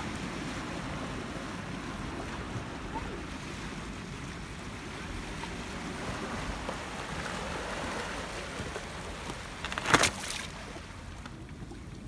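Steady wash of sea surf, with a short, loud burst of noise about ten seconds in.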